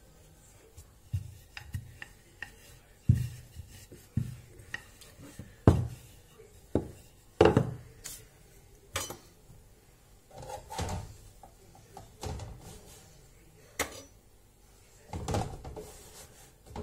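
Wooden rolling pin knocking and rolling over dough on a tiled countertop: irregular thumps and knocks, several loud ones in the first half as the pin is worked and then set down. Softer clattering and rubbing follows later.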